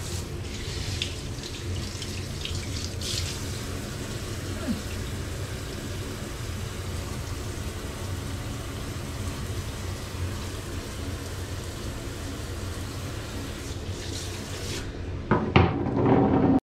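Handheld shower spraying water over a small dog's coat in a bathtub: a steady rush of running water. A louder, brief sound comes in near the end.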